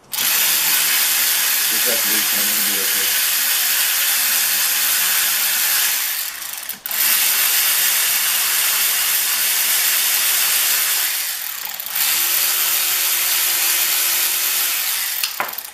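Cordless power tool with a socket running in three long stretches of several seconds each, with two short breaks between, as it spins the bolts out of a Yamaha YZ125 two-stroke engine's outer side case.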